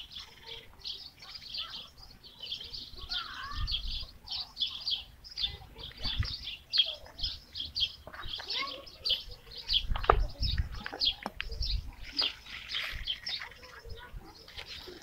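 Small birds chirping, short high chirps repeated several times a second all through, with a few low thumps and a sharp knock about ten seconds in.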